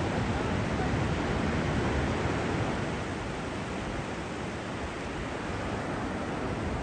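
Ocean surf washing up on a beach: a steady rush of breaking waves.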